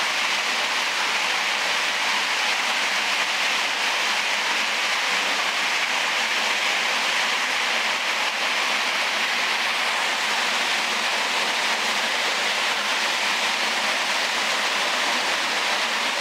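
Water rushing through a large concrete storm drain tunnel: a steady, unbroken hiss.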